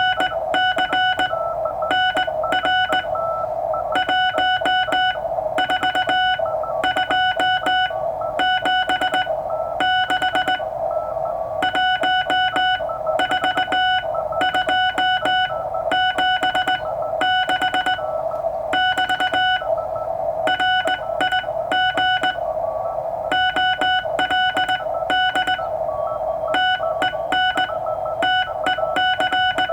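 Morse code (CW) from a Ten-Tec Century/21 transceiver's audio: one steady tone keyed on and off in dots and dashes, sent by hand, with receiver hiss underneath between the characters.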